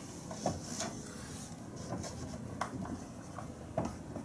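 Dry-erase marker drawing a circle and writing letters on a whiteboard: a run of short, soft rubbing strokes with a few sharper ticks.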